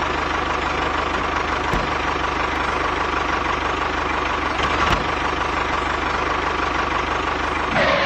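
Tractor engine running steadily at an even speed, with a fast, regular low pulse.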